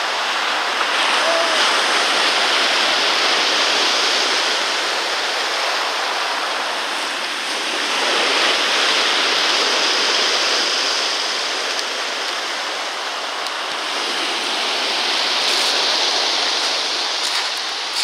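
Sea surf washing up and back over a pebble beach: a steady rush of water that swells and eases every five or six seconds.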